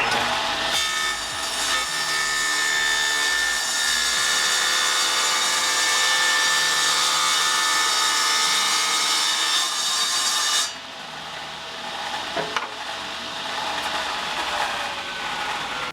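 Electric power saw running and cutting through wood for about ten seconds, a steady whine over the cutting noise, then dropping off sharply as it is switched off and winds down, with a couple of light knocks.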